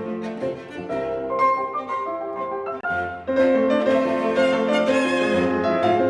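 Instrumental background music: strings and piano playing a melody, growing fuller and louder about three seconds in.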